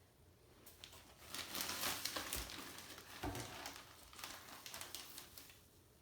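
Sand being poured out of a plastic bag, the bag crinkling as it is handled, with a couple of soft knocks midway.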